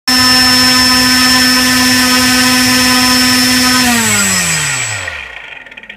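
DJI 2212 920KV brushless outrunner motor spinning a two-blade propeller at high throttle during a thrust test: a loud, steady whine. About four seconds in the throttle is cut and the pitch falls smoothly as the propeller spins down and fades out.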